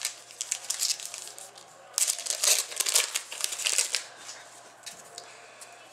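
Foil wrapper of a Panini Zenith hockey card pack crinkling and tearing as it is handled. There are two bursts: a short one at the start and a louder one lasting about two seconds, from about two seconds in.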